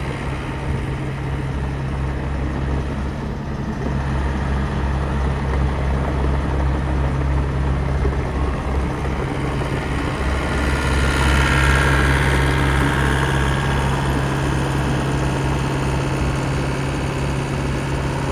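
Bobcat E63 compact excavator's diesel engine running at a steady idle, with a higher whine that grows briefly louder about two-thirds of the way through.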